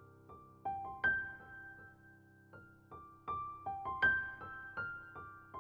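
Background piano music: a slow melody of single struck notes, each ringing and fading before the next.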